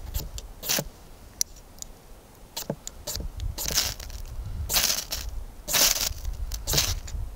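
A steel striker scraped along a small ferrocerium rod: a few short strikes, then about four longer, louder scrapes from about halfway through.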